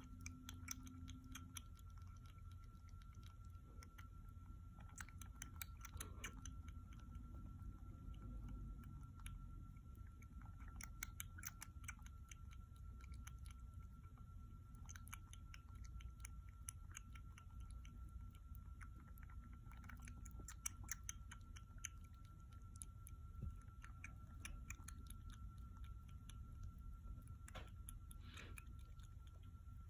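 Kitten suckling milk from a feeding-bottle teat: quiet, quick wet clicks and smacks that come in clusters. A faint steady high tone runs underneath.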